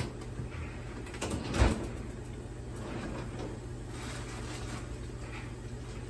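Whirlpool over-the-range microwave running, a steady low hum while it cooks a potato. A brief knock about a second and a half in.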